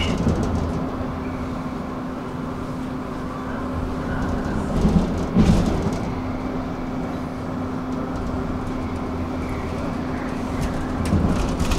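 Electric narrow-gauge commuter train running along the track: a steady rumble with a constant motor hum, and a pair of louder clattering knocks about five seconds in.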